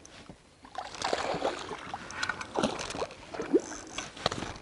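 Hooked smallmouth bass splashing and thrashing at the surface beside a kayak, with water sloshing and scattered small clicks and knocks.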